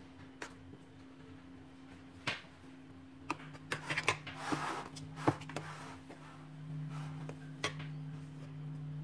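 A metal spoon spreading thick cream filling in a metal springform pan: soft scraping and several sharp clinks of the spoon against the pan, the loudest about five seconds in, over a steady low hum.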